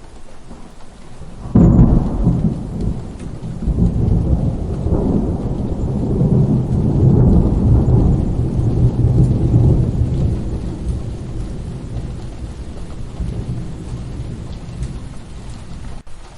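Rain falling steadily with a thunderclap about a second and a half in, followed by a long low rolling rumble that slowly fades.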